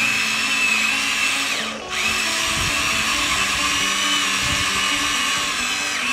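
Electric drive motors and plastic gearboxes of a Huina 1593 RC excavator whining high as its tracks drive it forward. The whine dies away briefly about two seconds in, then starts again and runs steadily.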